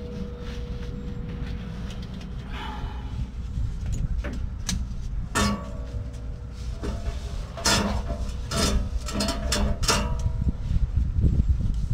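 Scattered knocks and clanks of exhaust pipe and muffler being worked into place under a truck, a few of them ringing briefly, over a steady low rumble.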